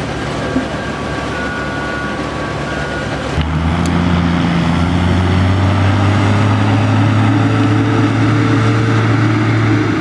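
Steady farm machinery noise, then, after a cut about three and a half seconds in, a louder and steadier tractor engine hum as a New Holland tractor runs with a square baler.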